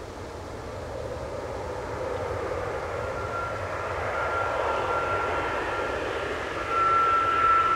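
Airliner approaching at an airport, its engine noise growing steadily louder, with a steady high whine that comes in about three seconds in and strengthens near the end.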